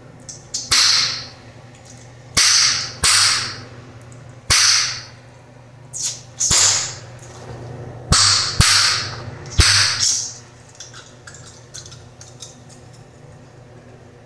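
Bubblegum snapped and popped loudly in the mouth: about nine sharp pops over the first ten seconds, each trailing off in a short hiss, followed by faint chewing clicks.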